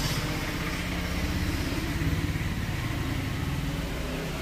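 A motor or engine running steadily with a low drone.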